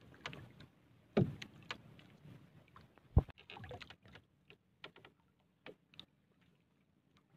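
Knocks and bumps against the hull of a small paddle boat as a handline is worked over the side, with two louder thuds about one and three seconds in, then lighter clicks.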